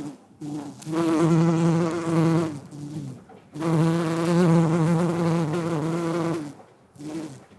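Bee buzzing in flight: a wavering, pitched hum that comes and goes in bouts, the longest two lasting two to three seconds, with short breaks between them.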